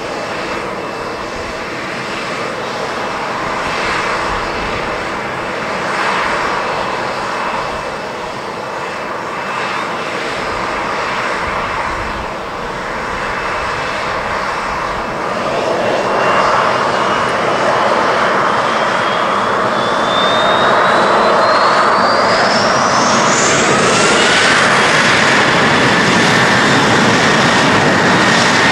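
Boeing 737-700's CFM56-7B turbofan engines whining at low power, then spooling up for a standing take-off while the jet holds on the runway. From about halfway through, the engine noise grows louder and a whine rises steeply in pitch before levelling off at high thrust.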